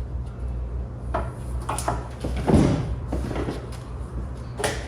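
Knocks and clanks of galvanized sheet steel being handled and set in a sheet metal brake, about four of them, the loudest and deepest about two and a half seconds in, over a steady low hum.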